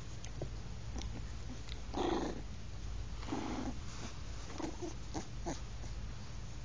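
Two puppies play-fighting with short growls, the loudest about two seconds in and another about a second later, then a few shorter ones, with small scuffling clicks between.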